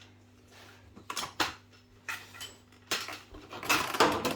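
Small hard objects clinking and clattering as they are handled, in a few separate knocks and then a quicker flurry of clatter near the end.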